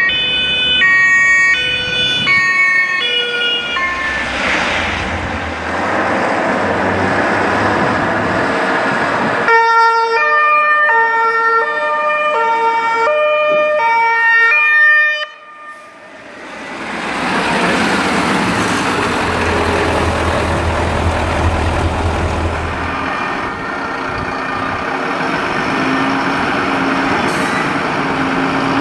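German fire service two-tone horns sounding in stepped alternating tones, with engine and road noise between the passes. After a cut, a fire engine's diesel runs as it pulls out of the station.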